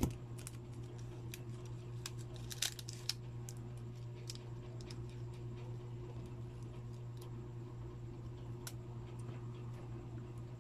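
Scattered small clicks and taps of a disassembled phone's frame and parts being handled and worked with a small hand tool. The sharpest click comes at the very start, and a quick cluster follows about two and a half seconds in.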